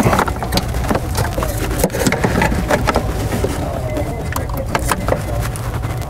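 Irregular clicks and knocks of hands working a plastic wiring connector loose at the engine control module under the hood, over a steady low rumble.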